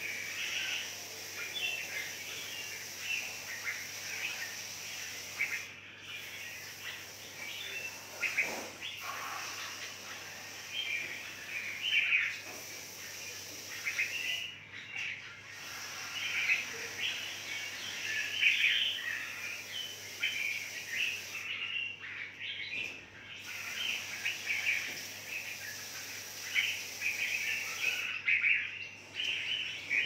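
Many red-whiskered bulbuls chirping and calling busily, short calls overlapping throughout, over the steady hiss of a garden hose spray nozzle that cuts out briefly a few times.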